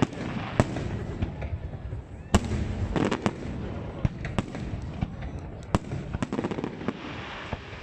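Aerial fireworks bursting: sharp bangs at irregular intervals, with a quick run of crackling pops in the second half, over a low rumble.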